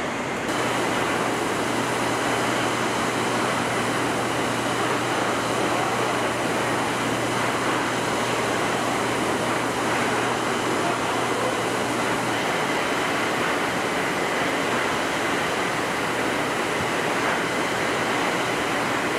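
Steady background noise of a truck assembly plant floor: an even rush, with a low hum underneath that stops about twelve seconds in.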